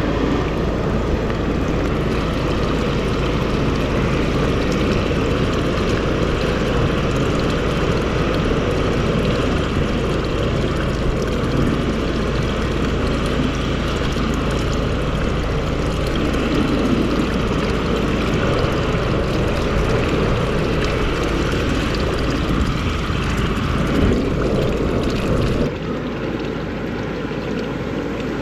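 Drain jetting machine's engine running steadily, with water flowing, as water is fed through the cleared pipe to test that it runs through. The sound drops abruptly and becomes quieter near the end.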